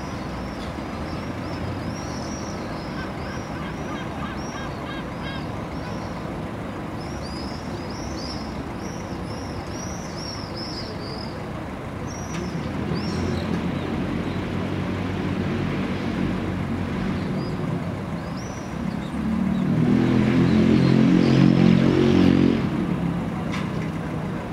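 Street ambience: birds chirping in quick high calls, then a large motor vehicle's engine passing, growing louder to a peak near the end and fading.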